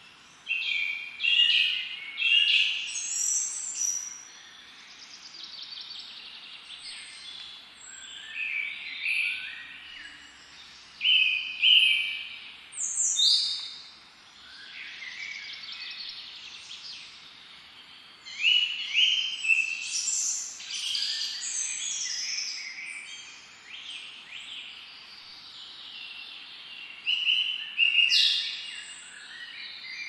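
Songbirds singing in repeated bright phrases of a second or two, some of them fast trills, over a faint steady background hiss.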